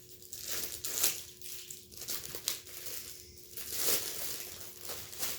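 Packaging around an instant-camera case crinkling and rustling in irregular bursts as it is unwrapped.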